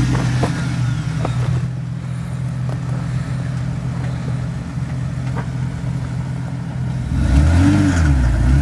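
Jeep Wrangler JK's V6 engine running slowly as it crawls over rocks, with a few light knocks in the first few seconds. After about seven seconds the engine revs up and down, louder, as it works over the boulders.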